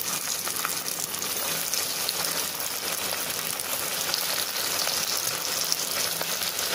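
Cornflake-coated potato wedges deep-frying in hot oil: a steady frying hiss with fine crackling throughout.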